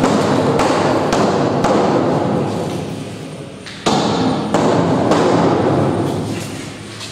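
Loud, regular thumps, a little under two a second, over a low steady drone; they pause briefly about three seconds in, then resume.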